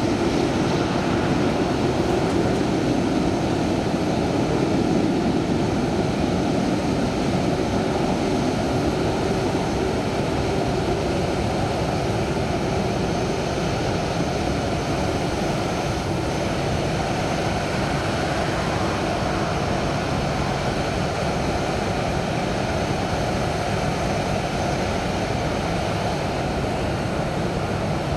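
Jet airliner engines running, a steady even noise that eases slightly after the first few seconds.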